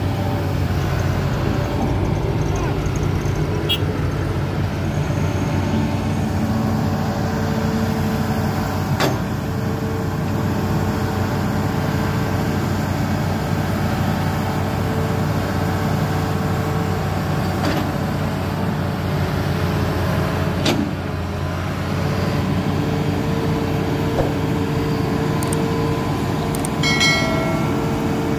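Hitachi Zaxis 210F amphibious excavator's diesel engine running steadily under load with a steady whine as the machine crawls up the riverbank on its pontoon tracks. A few sharp knocks come through, and there is a brief squeal near the end.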